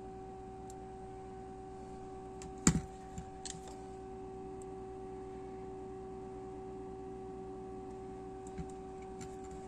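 Handling clicks from the folding waist-level viewfinder hood of a Lubitel twin-lens reflex camera: one sharp click a little under three seconds in, then a few fainter clicks, over a steady hum.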